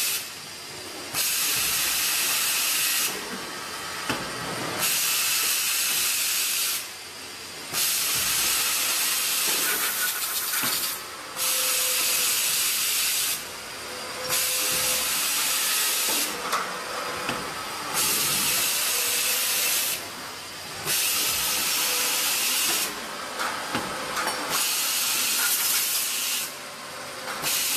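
Automatic drilling and tapping machine at work: a loud hiss of air comes in spells of two to three seconds, cut by short pauses about every three seconds as the machine cycles. Faint knocks and clicks run beneath it.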